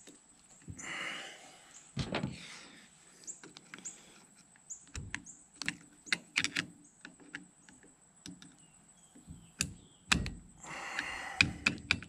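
Scattered metal clicks and knocks from handling U-joint parts and the drive shaft yoke during assembly, with a short scraping sound about a second in and another near the end.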